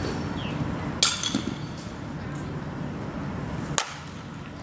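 A metal softball bat cracks sharply against a softball once, near the end, over a steady low rumble. A louder clank with a short metallic ring comes about a second in.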